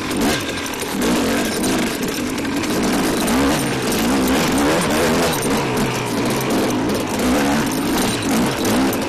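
KTM dirt bike's engine heard from the rider's helmet camera, revving up and down again and again as the throttle is worked through the trail, over steady wind and chassis noise on the microphone.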